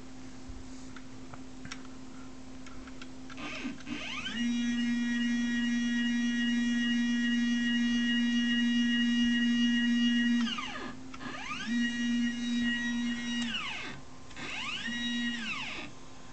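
Stepper motors of a homemade mini CNC machine driving its lead screw: a pitched whine that rises as the axis speeds up, holds steady for about six seconds, then falls away as it stops, followed by two shorter moves with the same rise and fall. A low steady hum runs underneath.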